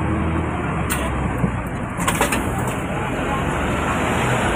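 Steady din of street traffic and a boarding crowd at a tram door, with two sharp clicks about one and two seconds in.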